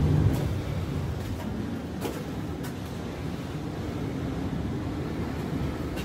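Steady low rumble of sea surf, heard from inside a rocky sea cave, mixed with wind on the microphone, with a few faint clicks.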